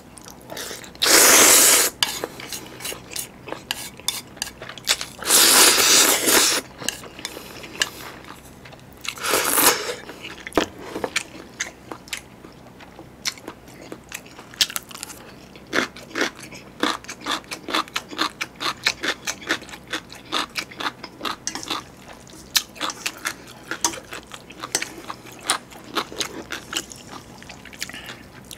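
Close-miked eating of spicy chewy instant jjolmyeon noodles: three long loud slurps in the first ten seconds, then steady chewing and crunching, including a crisp piece of pickled yellow radish.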